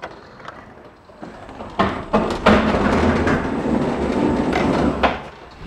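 A steel pallet stand loaded with an IBC tank is wheeled on an electric pallet truck across the tail lift into the truck's load box. Metal rattles and rumbles with many knocks, starting about two seconds in and stopping shortly before the end.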